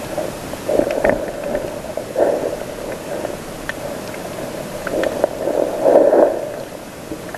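Underwater sound heard through a submerged camera housing: muffled surges of water and bubbles come every second or two over a steady hiss, the loudest near the end. Scattered sharp little clicks are heard between them.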